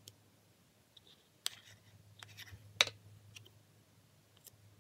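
A few light clicks and taps of plastic utensils against a plastic bowl as blue glitter is added to slime. The loudest come about one and a half and nearly three seconds in. A faint low steady hum runs underneath.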